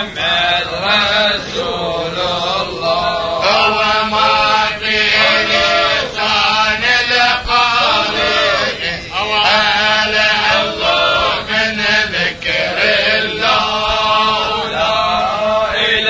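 Men's voices chanting a tahlila, an Islamic devotional hymn built on the refrain 'lā ilāha illā Allāh'. The voices sing in long, drawn-out phrases that rise and fall in pitch.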